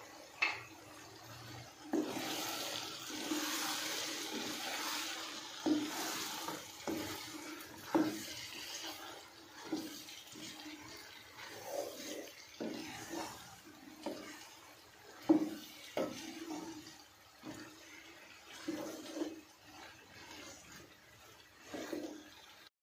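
Wooden spatula stirring diced potatoes and green bell pepper in a non-stick wok, with repeated knocks and scrapes against the pan. A hissing sizzle of the vegetables frying in the masala starts about two seconds in and dies down after about nine seconds.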